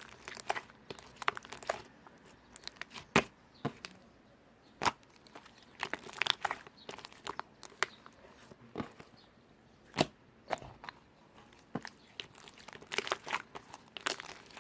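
Slime being played with by hand, giving irregular sharp clicks and pops, some single and some in quick clusters.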